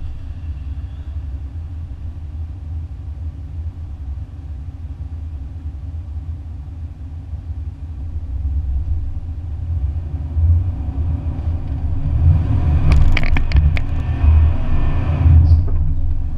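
Low rumble of a 2014 Ram 1500's 5.7-litre Hemi V8, steady at first, then growing louder about two-thirds of the way through as the truck drives off-road, with a few sharp knocks near the end.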